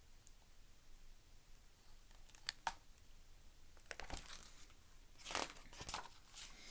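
Paper pages of a large picture book being turned and handled: faint rustles and a few sharp flicks of the pages, most of them in the second half.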